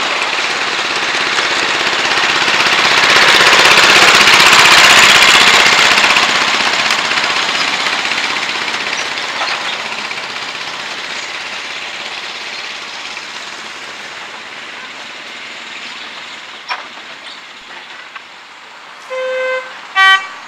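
Petrol-engined miniature railway locomotive hauling passenger coaches past, its engine and the wheels on the track loudest about four seconds in, then fading as it runs away down the line. Near the end, two short horn toots, the second louder and briefer.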